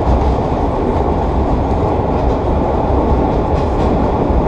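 1930s R1/9 subway train running at speed through a tunnel, heard from inside the front car: a loud, steady rumble of wheels on rail with the growl of its straight-cut gears.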